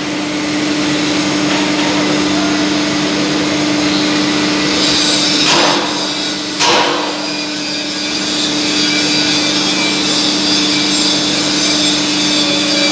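Steel fabrication shop machinery running with a steady hum and a rasping tool noise, with two short, louder noisy bursts about a second apart midway.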